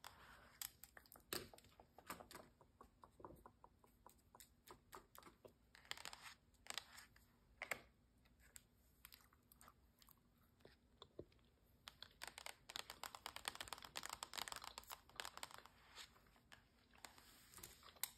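Faint chewing of gummy bear candy close to the microphone: soft, sticky mouth clicks, thicker for a few seconds near the end.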